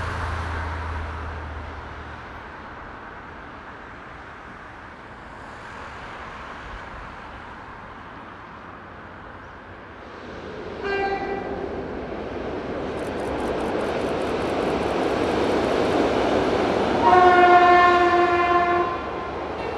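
Freight train hauled by two DB class 298 diesel-hydraulic locomotives approaching across a steel rail bridge, its running noise building steadily. The locomotive horn gives a short blast about halfway through and a longer, louder one near the end as the wagons roll past.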